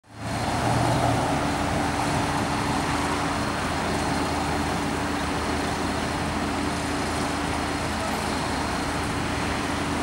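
Truck engines running steadily at a constant speed: a low, even hum over a wash of noise.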